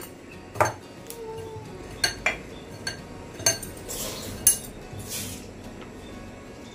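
A glass bowl clinks sharply about six times, spaced irregularly, as a hand mixes and presses a crumbly ground dry-fruit and ghee mixture in it. Soft rustles come near the middle as the mixture is squeezed.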